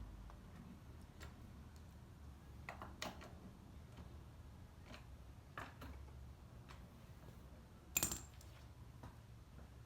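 Faint, scattered light metallic clicks and clinks, as of small metal objects being handled, with a louder clink about eight seconds in.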